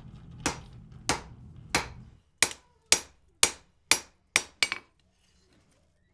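Hand hammer forging a hot bar of wrought iron on an anvil: about ten sharp, ringing blows at roughly two a second, with a pause of about a second near the end. A low hum underneath stops about two seconds in.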